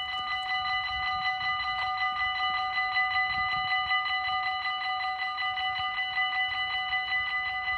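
Dutch railway level-crossing warning bell ringing rapidly and steadily, several pitches struck together at about eight strokes a second. It sounds with the flashing red light as the crossing's warning that a train is coming and the barriers are closing.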